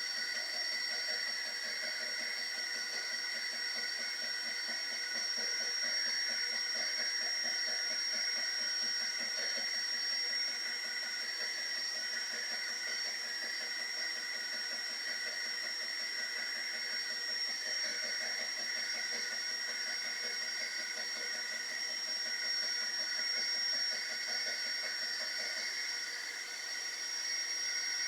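Creality K1 3D printer running with a steady high whine and hiss, while the extruder stepper motor knocks rapidly against a jammed extruder. The knocking comes and goes, stronger for the first ten seconds or so and again later on.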